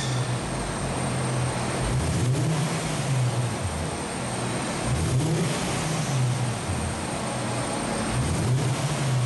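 Infiniti QX50's 3.7-litre VQ37 V6 running through a pair of medium-sized mufflers held by hand against its open exhaust pipes, a test of how those mufflers sound. The exhaust runs steadily, its pitch rising briefly about three times as the engine is revved lightly.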